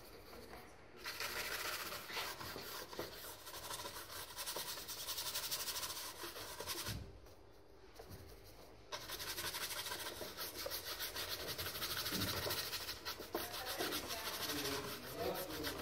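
Paintbrush scrubbing oil paint onto a stretched canvas in quick, vigorous strokes: a dry, rasping rub that breaks off for about two seconds in the middle and then starts again.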